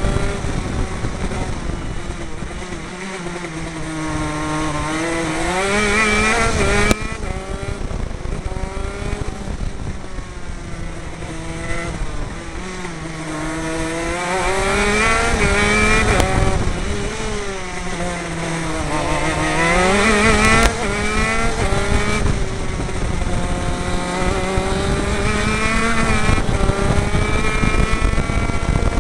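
A 125cc two-stroke KZ shifter kart engine at racing speed, heard from on board. Its pitch slides down and climbs back up again and again as the kart slows for corners and accelerates out of them.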